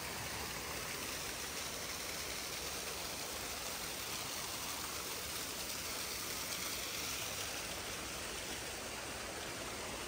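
Steady rush of water pouring down a small man-made waterfall.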